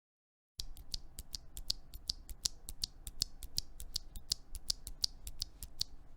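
JWK Cotton Candy light tactile mechanical keyboard switches, lubed with Krytox 205G0 and filmed, pressed and released over and over in quick bright clacks, about six a second. The clacking starts about half a second in and cuts off abruptly at the end.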